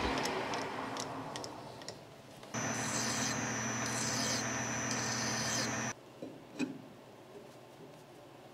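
Metal lathe motor running while a hand file is drawn against the spinning steel leadscrew, a few scraping file strokes over a steady hum with a high whine. It starts about two and a half seconds in and cuts off sharply about a second later than halfway. Faint clicks and a light knock from handling the part follow.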